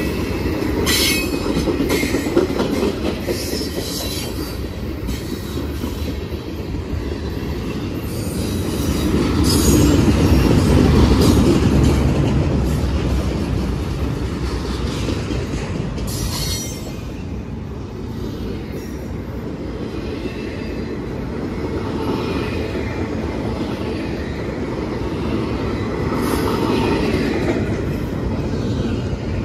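Freight train of tank cars and double-stack intermodal well cars rolling past at close range: a steady rumble and clatter of steel wheels on rail, with short, high wheel squeals now and then. It is loudest about ten seconds in.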